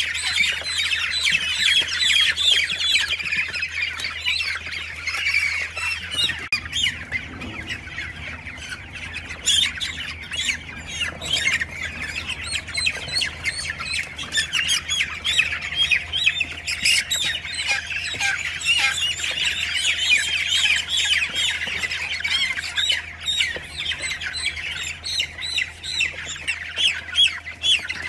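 Many newly hatched chicks peeping continuously, a dense chorus of short, high peeps, over a low steady hum.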